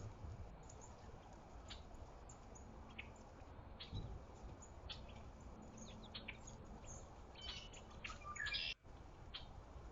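Small songbirds chirping: short, scattered high chirps, with a louder run of calls about eight and a half seconds in.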